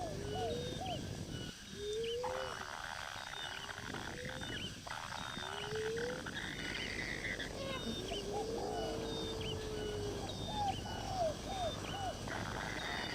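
Wild animal calls: many short, repeated rising calls mixed with short high chirps, over a buzzing chorus that starts and stops several times.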